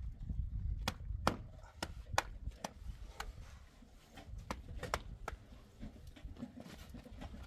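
A series of sharp, irregular clicks and knocks, about a dozen over several seconds, over a low background rumble.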